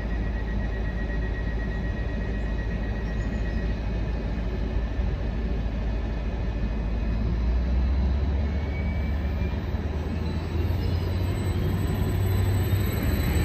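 Greater Anglia Class 755 bi-mode train running on its diesel engines at the platform, a steady low rumble. It grows louder in the second half as the train starts to pull away.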